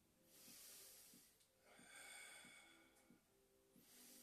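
Faint, slow breathing of a person holding a stretch: three soft breaths about a second and a half apart, otherwise near silence.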